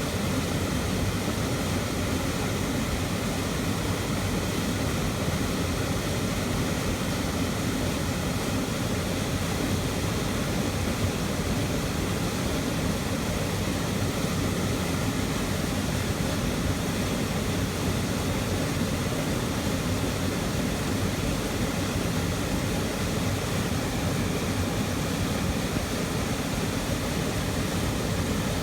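Waterfall heard from right beside it: a loud, steady rush of falling water, with most of its weight low down.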